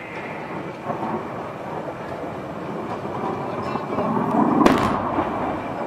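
Steady rushing rumble in the dust-laden air at a howitzer firing position, swelling to one sharp crack about four and a half seconds in.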